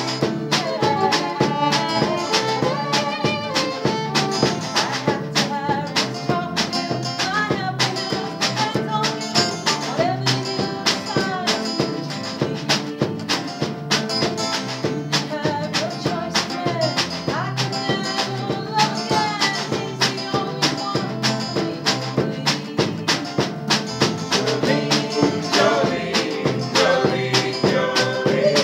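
Live folk music: a fiddle playing a tune over steadily strummed guitar and a bass guitar. The fiddle drops out early on while the strumming and bass carry on.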